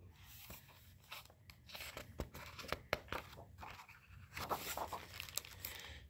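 Faint rustling and small clicks of a hardcover picture book's paper pages being handled and turned.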